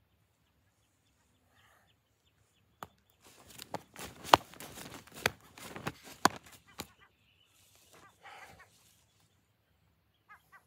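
Feet stamping and shuffling on grass close to the microphone, with clothing rustling: a burst of sharp thuds lasting about three seconds. A few short bird calls near the end.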